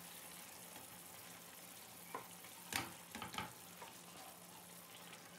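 Faint simmering of tomato sauce in a frying pan, with a few soft clicks and knocks from about two seconds in as browned chicken pieces are laid into the sauce.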